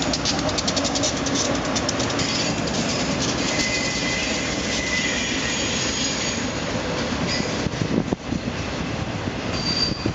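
A Union Pacific freight train rolling past: the diesel locomotives and then the double-stack container cars. There is a steady rumble of wheels on rail, with rapid clickety-clack over the rail joints at first, brief high wheel squeals near the middle and end, and a couple of knocks about eight seconds in.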